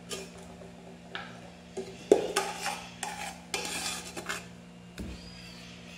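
A metal spoon scraping and knocking against a metal baking tray while spreading mashed potato. The loudest knock comes about two seconds in, a stretch of scraping follows, and there is a dull thump near the end.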